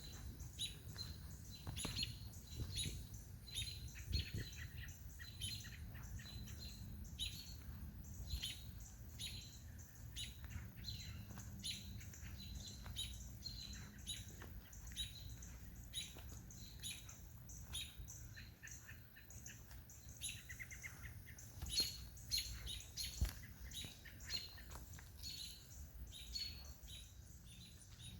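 Small birds chirping over and over with short, high notes, and a brief rapid trill about two-thirds of the way through, over a low steady rumble.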